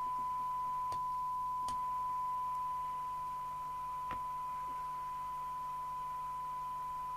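Steady 1 kHz test tone from a signal generator, demodulated and played through the CB radio's speaker during a SINAD receiver-sensitivity check; the tone dips slightly in level about three seconds in, with a few faint clicks.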